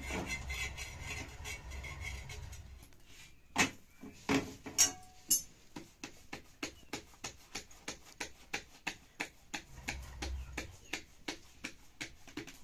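Hands patting a ball of flatbread dough flat on a plastic plate: an even run of soft slaps about three a second, after a few sharper knocks. A low rumble underlies the first few seconds.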